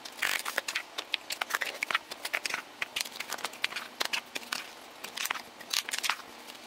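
Serving spoon scraping and knocking against a skillet and plastic meal-prep bowls as fried rice is scooped and portioned out: a steady run of irregular small clicks and scrapes.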